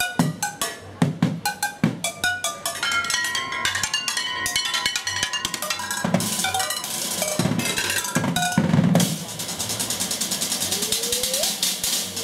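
Drumsticks beating a kitchenware drum kit of pots, pans, pot lids, cutting boards and small cymbals in a fast, rhythmic pattern, with metal pots ringing after the hits. About three quarters of the way in it turns into a rapid, even roll that carries on to the end.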